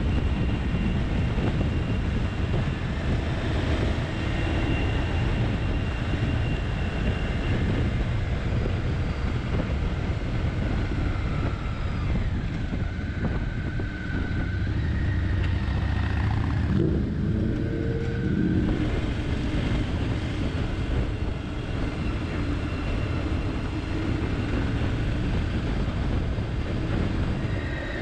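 Motorcycle riding at road speed: a steady rush of wind on the microphone over the engine's drone, whose pitch rises and falls now and then with speed.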